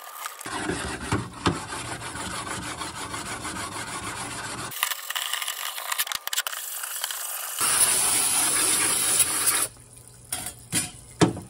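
Flat stone rubbed back and forth across the aluminium face of a VW 01M/01P valve body, a steady rasping scrape as the high spots are dressed flat. A stretch of hissing spray follows, then a few sharp knocks near the end as the parts are set down.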